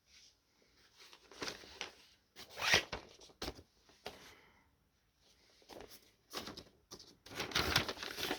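Paper and card rustling and sliding in several short swishes: a vinyl LP in its paper inner sleeve being drawn out of its cardboard album sleeve, with a sharp click about three and a half seconds in.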